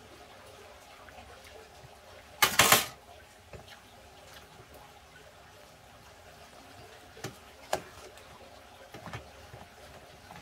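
Kitchen handling sounds while cooking: a short, loud rush of noise about two and a half seconds in, then a few light clicks and clinks of kitchenware.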